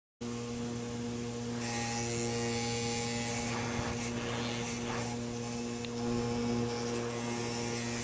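Bench grinder motor running with a steady electric hum. From about a second and a half in, a thin metal rod is pressed against the spinning wire wheel, adding a scratchy brushing hiss that swells and eases as the rod is worked against it.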